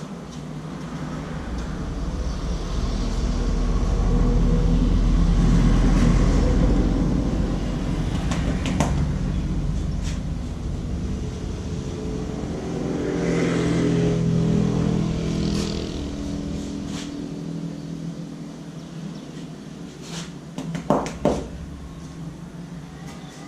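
Road vehicles passing close by. A deep engine rumble swells and fades over several seconds, and a second engine passes about halfway through. Two sharp knocks come near the end.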